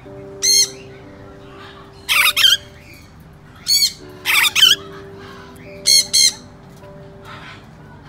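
Parrot squawking loudly: harsh calls, mostly in quick pairs, every second or two. Soft background music with sustained notes runs underneath.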